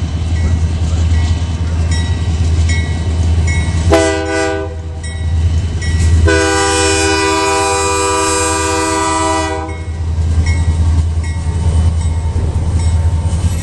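Horn of CN 2530, a GE C44-9W diesel locomotive leading a freight train: a short blast about four seconds in, then a long blast of about three and a half seconds. Under it runs the steady low rumble of the passing locomotives and cars.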